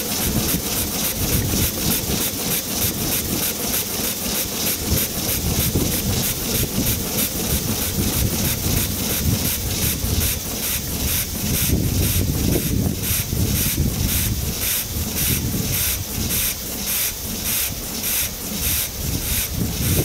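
1902 Toledo vertical twin-cylinder steam engine running with its cylinder petcocks open, steam hissing out of them in an even rhythm of about two to three spurts a second.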